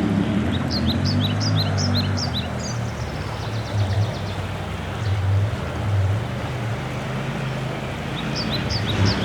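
Adventure motorcycle engine running at low, fairly steady revs with a few small swells in throttle. Over it a bird sings a quick run of short, falling chirps in the first couple of seconds and again near the end.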